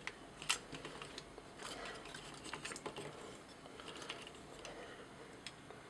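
Faint, scattered clicks and taps of hard plastic toy parts being handled as the head of a transforming robot figure is worked loose with its sword.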